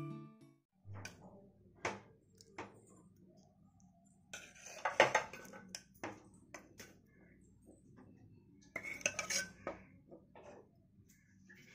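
Spoon clinking and scraping against a glass bowl in irregular bursts while chicken pieces are stirred through a thick marinade, busiest about five seconds in and again around nine seconds.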